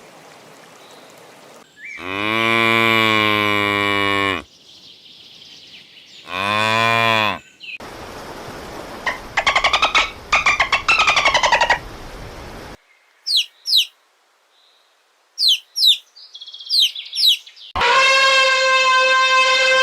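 A cow mooing: one long low moo, then a shorter one a couple of seconds later. Fast chirping and quick falling bird chirps follow, and near the end another long call with many overtones starts.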